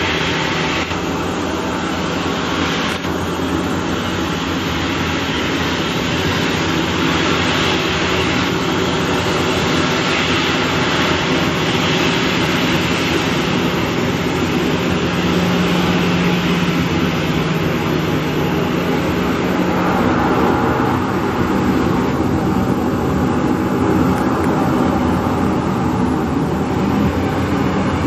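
Boeing 737-800's CFM56 jet engines running at taxi power as the airliner taxis: a steady engine noise with a low hum.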